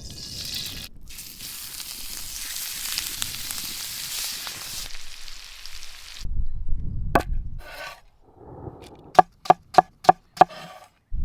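Food sizzling in a hot pan for about six seconds, then a few dull thuds and a quick run of six sharp chopping knocks on a cutting board near the end.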